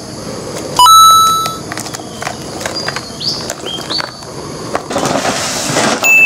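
Electronic beep tones: a sharp held tone about a second in and another near the end, with short rising chirps between and a brief hiss before the last one.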